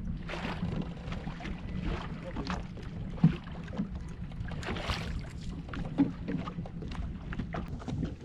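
Small clicks, taps and knocks of handling noise over a steady low hum, with one sharp knock about three seconds in and another about six seconds in.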